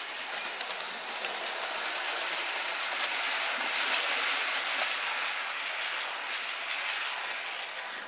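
Model railway trains running on the track, wheels clattering over the rails with faint clicks. The noise swells to its loudest about halfway through as a train passes close by, then eases off.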